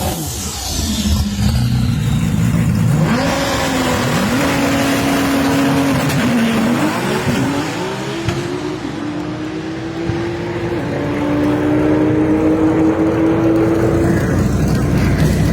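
Nissan R35 GT-R's twin-turbo V6 at full throttle on a drag-strip pass, engine pitch climbing and stepping back at each of several upshifts.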